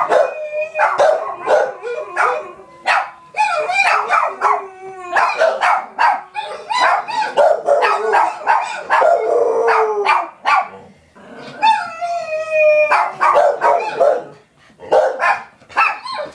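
Bluetick hound howling, long drawn-out pitched howls that slide and sink in pitch, mixed with many short sharp barks and yips.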